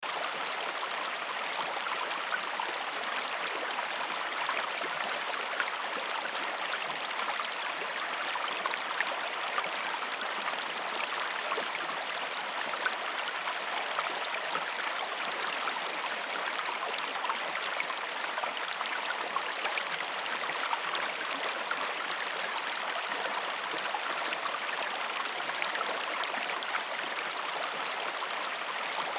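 A river's flowing water, a steady rushing babble with small splashes and gurgles throughout.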